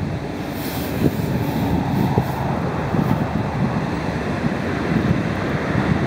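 Wind buffeting the microphone: a steady, fairly loud low rumble that flickers unevenly.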